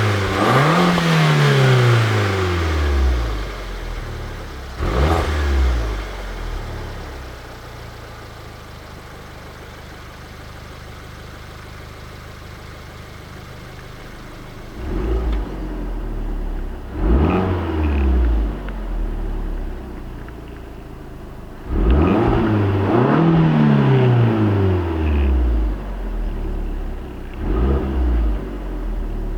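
Alfa Romeo MiTo Quadrifoglio Verde's stock 1.4 turbocharged four-cylinder engine revved up several times, its pitch climbing quickly and falling back each time, with a quieter, steady stretch in between.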